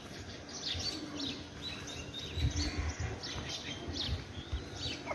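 Small birds chirping over and over: short, high chirps, some falling in pitch, scattered throughout, with a few low bumps about two and a half seconds in.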